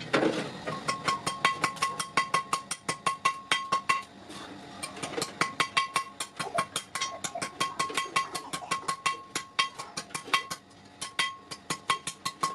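Rapid, even metallic clinking, about six strikes a second, each with the same ringing note, as of a utensil beating against a metal pot or bowl; it pauses briefly twice.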